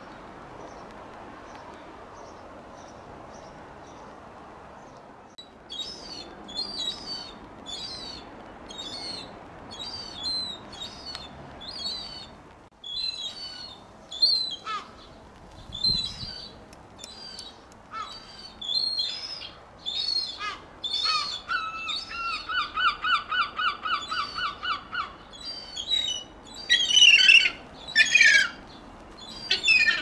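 Juvenile gull calling: after a few quiet seconds, a run of high, thin cries repeated in quick succession, a fast even trill lasting a few seconds in the second half, and the loudest, harsher calls near the end.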